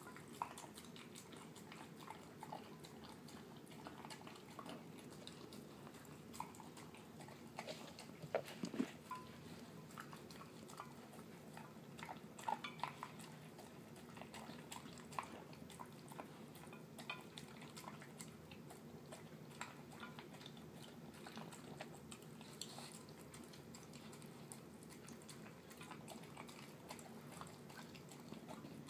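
Terrier mix eating wet canned dog food mixed with kibble from a glass baking dish: soft, mushy chewing and smacking with irregular small clicks and licks. A steady low hum sits underneath.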